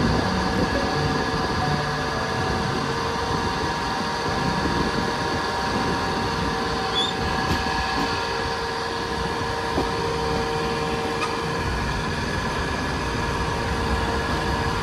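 A Mumbai suburban electric local train running: a steady rumble and rattle with a few steady humming tones over it.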